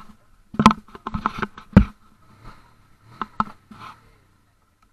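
Irregular close knocks and rubbing, handling noise on a body-worn camera as it is shifted round. There are loud sharp knocks about half a second in, two more near one second, a strong one near two seconds and a pair after three seconds, with a faint steady high hum behind them, all stopping about four seconds in.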